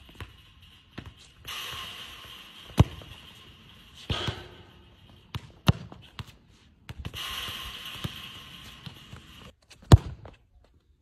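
Footballs being kicked and bouncing on a concrete court: a handful of sharp thuds a second or more apart, the loudest near the end. A steady hiss cuts in and out between them.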